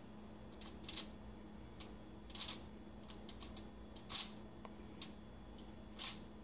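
Aluminium foil on a baking sheet crinkling under hands pressing cookie dough flat: about four short, crisp crackles with faint ticks between.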